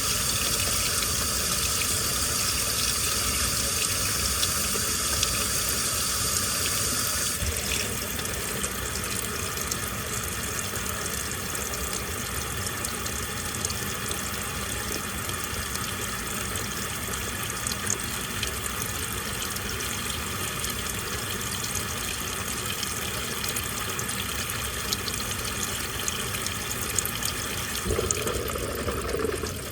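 Washing machine with water pouring into the drum, the inflow cutting off suddenly about seven seconds in; after that a quieter, steady water sound from the drum goes on, with a brief low hum near the end.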